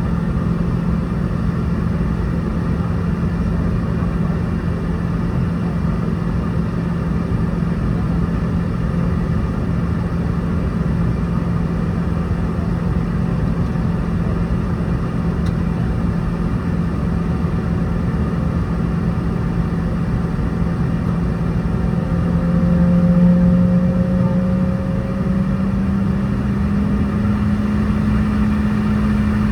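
Steady engine and cabin hum inside a Boeing 717-200, its Rolls-Royce BR715 jet engines running. About 22 seconds in the hum swells briefly and steps up slightly in pitch.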